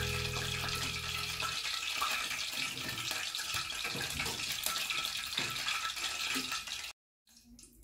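Steady hiss full of fine crackling, with steady background music tones that stop about a second and a half in; the hiss cuts off abruptly near the end.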